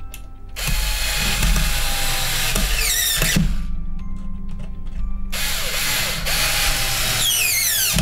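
Electric screwdriver driving two Phillips screws into a deadbolt latch faceplate in two separate runs. Each run ends in a falling whine as the motor winds down.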